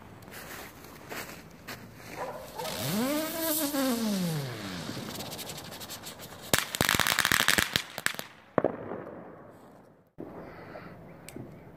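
Fireworks and firecrackers going off. A tone rises and falls over about two seconds, then comes a loud, dense burst of crackling about seven seconds in and a sharp bang just after. The sound cuts off suddenly about ten seconds in.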